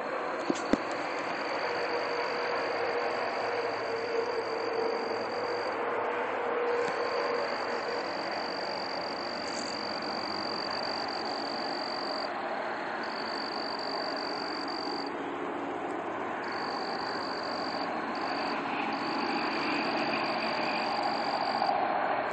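A steady, dense droning noise of unknown origin that the recorder calls undescribable and could not locate. A constant high whine runs above it and drops out briefly a few times. Two sharp clicks come about half a second in.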